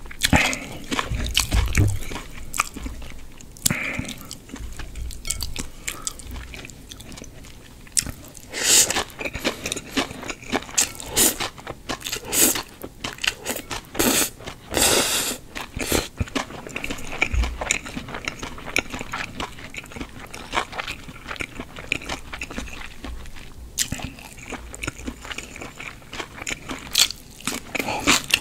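Close-miked eating of spicy buckwheat makguksu noodles: wet chewing and mouth clicks, with several louder slurps of noodles in the middle.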